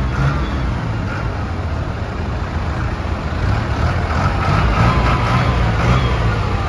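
Several tractors' diesel engines idling together, a steady low-pitched running sound with no clear change.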